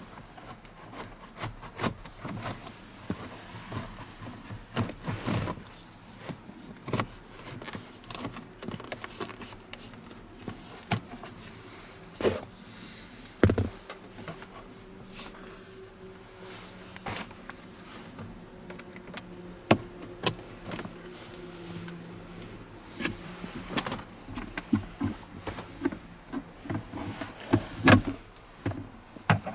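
Scattered clicks, taps and knocks of hands handling plastic interior trim and the filter housing during a cabin air filter change. A faint steady hum sits beneath them for a stretch in the middle.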